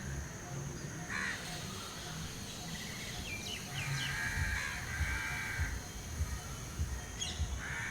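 Crows cawing a few times, the longest calls just past the middle, with brief higher chirps from small birds in between.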